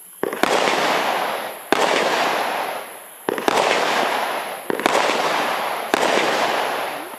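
A consumer fireworks barrage cake firing shot after shot, with a sharp bang about every second and a half. Each bang is followed by a dense crackle that fades over a second or so, from crackling star bursts.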